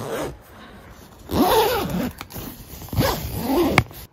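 A zipper on a Zed Korea Wild Dome EX tent being pulled open in two long strokes, about a second in and again about three seconds in, to open a vent.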